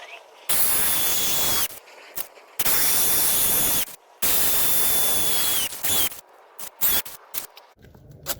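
Hammer drill boring into concrete block in three short bursts, its motor whine dropping as each one stops, followed by a few light clicks near the end.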